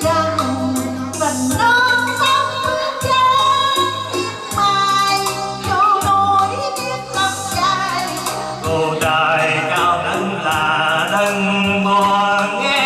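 A woman and a man singing a duet into microphones, amplified through PA speakers over backing music with a steady bass line; the held notes waver with vibrato.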